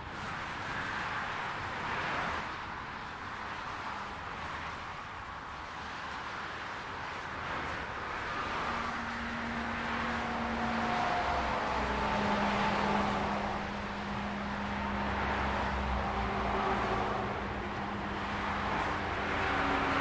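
Continuous motorway traffic: cars passing at speed, their tyre noise swelling and fading one after another. From about halfway through, the deeper, steadier engine drone of heavy lorries passing joins in.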